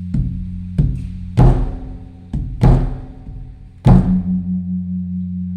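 Large Thai temple drum (klong laeng) beaten with a stick, about seven strikes in an uneven rhythm, each booming and ringing on, over a steady low drone. The drumming is the evening signal that announces the eve of the Buddhist holy day.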